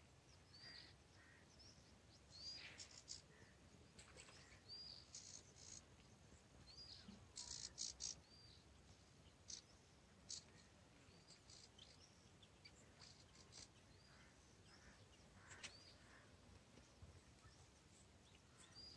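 Faint bird chirping: a short, high note that rises then drops, repeated about every two seconds, with a few brief high clicks among them over quiet open-air background.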